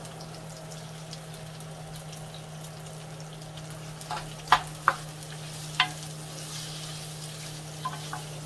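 Sliced onion sizzling in hot oil and garlic in a clay cazuela while it is stirred with a wooden spoon. A few sharp knocks of the spoon against the pot come between about four and six seconds in, with two lighter ones near the end.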